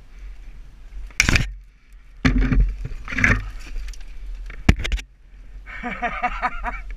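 Three loud bursts of knocking, scraping and rustling on a GoPro's microphone as it tumbles through grass in a quad bike crash. Near the end comes a quick run of short pitched calls, about five a second.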